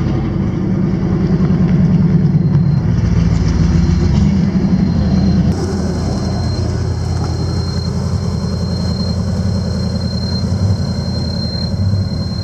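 Chevrolet Camaro IROC-Z's V8 engine running at low speed as the car rolls slowly out of a driveway. The engine is louder in the first few seconds, then runs on steadily and a little quieter after a cut, with a thin steady high tone over it.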